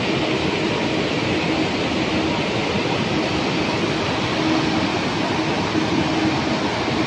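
A swollen, muddy river in flood rushing over boulders: a steady, loud wash of turbulent water. A faint low hum comes and goes under it.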